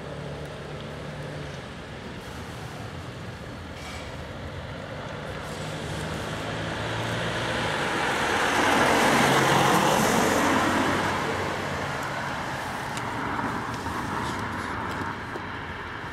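A road vehicle passes by. Its tyre and engine noise swells to a peak a little past the middle and then fades, over a steady low engine hum.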